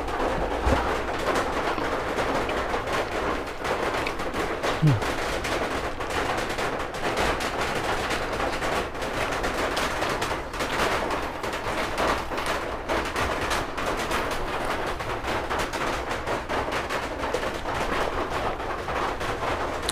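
Heavy rain pouring down, a dense, steady, really loud patter of drops. A short low falling sound stands out about five seconds in.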